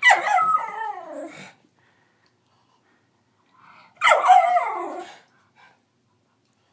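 Nine-month-old miniature schnauzer giving two drawn-out cries, half bark and half howl, each falling in pitch: one at the start and one about four seconds in.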